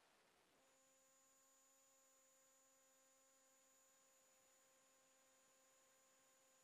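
Near silence with a faint, steady electrical hum and a thin high whine, which come back in about half a second in.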